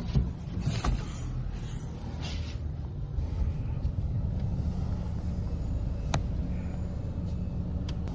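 Steady low rumble of a motor vehicle running, with a few sharp clicks.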